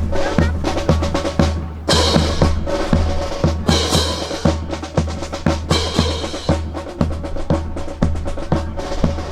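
Drum-heavy music with a steady run of bass drum and snare beats.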